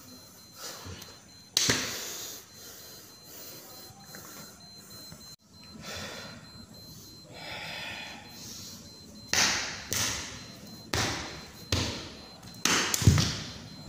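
Sharp slaps from a man's hand strikes and arm swings as he runs through silat moves, one about a second and a half in, then a quick run of about six slaps, roughly half a second to a second apart, from about two-thirds of the way through. Each slap rings briefly in the tiled hall.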